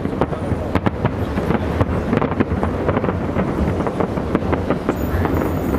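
Fireworks going off in rapid succession: a string of sharp bangs and crackles over a steady low rumble.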